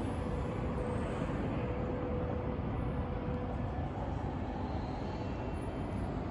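Steady low rumble of a city's background noise, with a faint steady hum that comes and goes.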